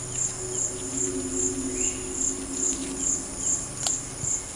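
Forest insects calling: a high chirp pulsing about two or three times a second over a steady high buzz, with one sharp click near the end.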